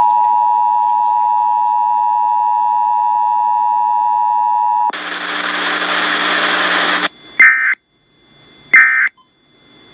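Emergency Alert System signalling over broadcast radio. The two-tone attention signal holds steady for about five seconds, then about two seconds of loud hiss starts and stops abruptly. After that come short screeching data bursts, the end-of-message code, about a second and a half apart: two in full, and a third starting at the very end.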